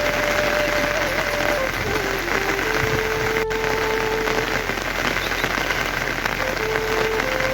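Steady heavy rain pouring down, with a quiet melody of long held notes running over it.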